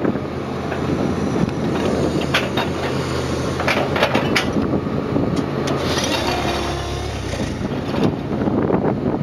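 Excavator-mounted hydraulic plate compactor vibrating on gravel: a steady low machine hum, with scattered sharp clicks and knocks of stones between about two and six seconds in.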